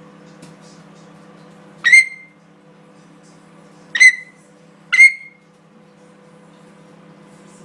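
African grey parrot giving three short, loud calls that sweep up in pitch, the last two a second apart, over a steady low hum.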